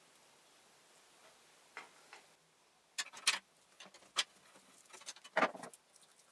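Irregular small clicks and taps of metal parts and tools being handled during printer repair work, with a brief rattle about five seconds in.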